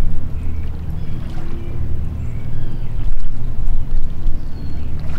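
Loud, steady low rumble with faint short high chirps above it.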